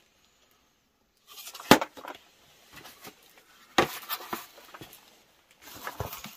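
Small objects being handled on a shelf: light rustling with a few sharp clicks and knocks, starting about a second in.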